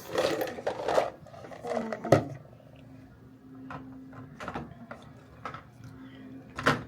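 Scattered light clicks and knocks of small household items being handled, over a faint steady hum.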